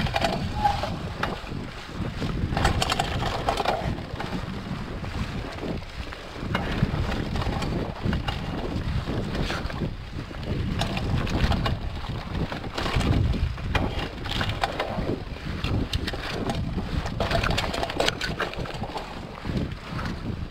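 Mountain bike rolling fast over a trail of fallen leaves and dirt: wind buffeting the microphone, with the tyres crunching and crackling over the leaves and the bike rattling over bumps.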